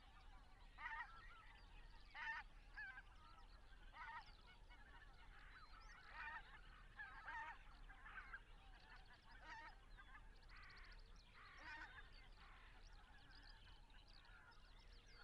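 A flock of white-fronted geese calling in flight: faint honking calls repeated every second or so, thinning out over the last few seconds.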